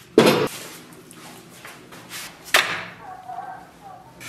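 A black wok set down onto a gas stove with a heavy clunk, then a second sharp knock about two and a half seconds in as the raw pork hock goes into the wok, with light handling knocks between.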